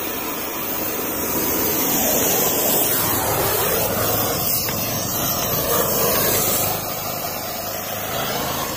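Gas welding torch flame hissing steadily as it heats a seized lug nut on an alloy wheel. The nut is stuck fast on a wheel stud with stripped threads, so it is being heated to melt it off.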